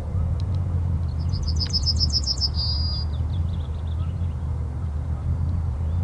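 Male yellowhammer singing one song phrase about a second in: a quick run of about ten high, identical notes ending in a longer drawn-out note. A steady low rumble runs underneath.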